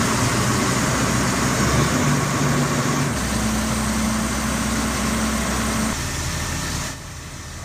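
Truck-mounted crane's engine running steadily as it hoists a steel beam. The drone changes pitch about three seconds in and drops quieter near the end.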